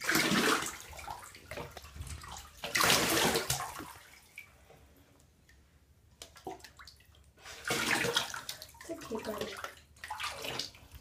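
Water splashing and pouring in a bathtub as a cat is washed, in three bursts with a quieter pause between about four and seven seconds in.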